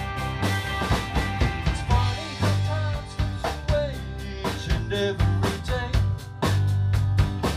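Live rock band playing: a drum kit keeping a steady beat under bass guitar, electric and acoustic guitars and keyboard, with a melodic line bending in pitch through the middle.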